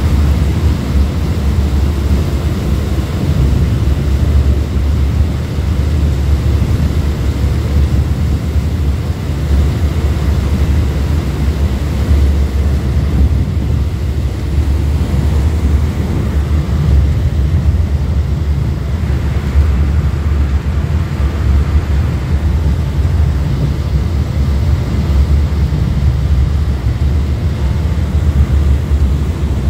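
Wind buffeting the microphone in a steady low rumble, over the running noise of a high-speed ferry and the rush of its churning wake.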